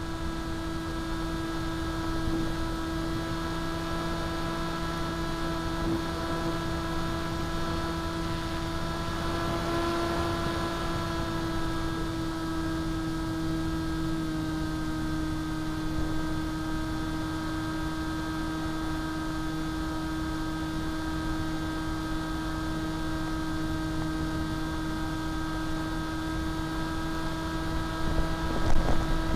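Electric motor and propeller of a foam RC plane in flight, heard from an onboard camera: a steady hum with wind rushing over the microphone. The pitch rises slightly about ten seconds in and drops a little a few seconds later, and a brief louder rush comes near the end.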